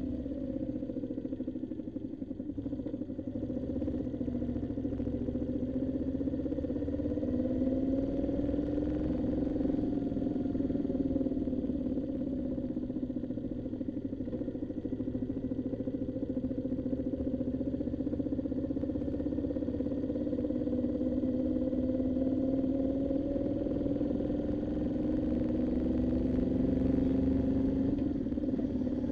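Moto Guzzi V7's air-cooled transverse V-twin engine running on the road, its pitch rising and falling gently with the throttle, over a steady low rumble.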